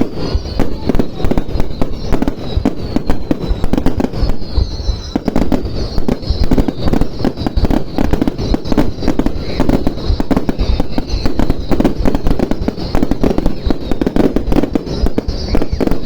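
Fireworks display: a continuous, dense barrage of bangs from bursting shells, many a second without let-up.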